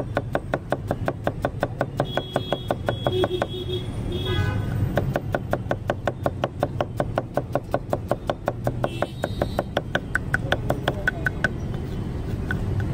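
Kitchen knife rapidly chopping red onions on a wooden chopping block, an even run of chops about five a second with a brief pause about four seconds in.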